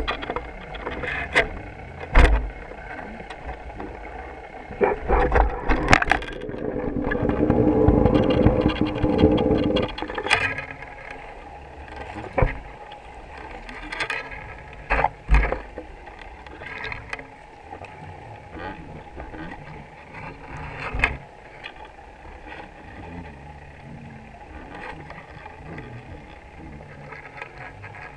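Muffled underwater noise heard through a GoPro's waterproof housing on a fishing line: a steady hum with scattered sharp clicks and knocks. The first ten seconds are louder, with a rushing low rumble that then drops away.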